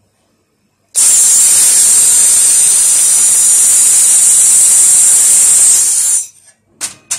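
Handheld fiber laser welding gun welding an inside corner seam of sheet steel: a loud steady hiss of shielding gas from the nozzle starts about a second in and cuts off after about five seconds, followed by two short bursts near the end.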